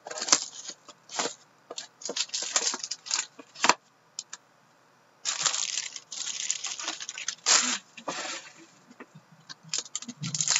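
A sealed box of trading cards being opened by hand: sharp clicks and taps of cardboard and plastic being handled, then, after a brief pause, plastic wrapping and a foil pack crinkling and tearing for a few seconds, and a few more clicks near the end.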